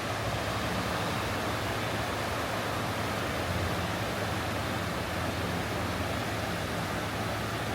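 Steady road and engine noise inside a moving car, an even rushing hiss with a low hum underneath.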